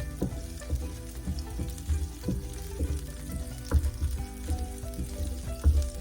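Seafood and holy basil stir-frying in a hot pan: steady sizzling, with a spatula knocking and scraping against the pan again and again as the food is tossed.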